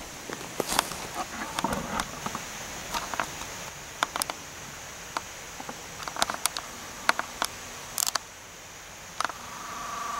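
Footsteps on dry leaf litter and twigs, in scattered sharp snaps and crackles. Near the end a camcorder's zoom motor whirs with a steady hum.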